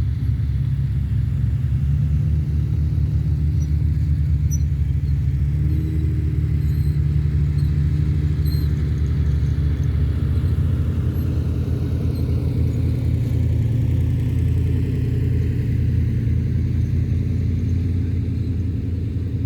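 A vehicle's engine running steadily with a low rumble, its pitch rising a little about six seconds in.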